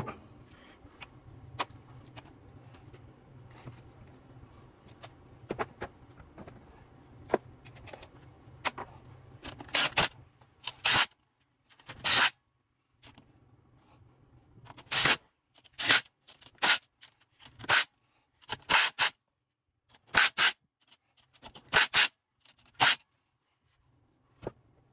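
Hand-tool work on a transfer case: light clicking and parts handling, then about ten seconds in a run of about a dozen short, sharp metallic strokes, roughly one a second.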